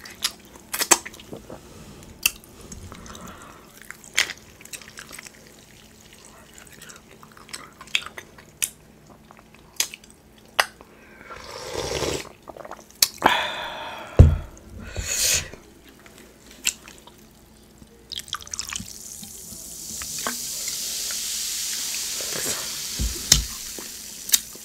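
Close-miked eating sounds: bites of crisp cucumber and wet mouth clicks. About halfway through come sips from a glass mug of ice, followed by a loud knock, and near the end a long soft hiss.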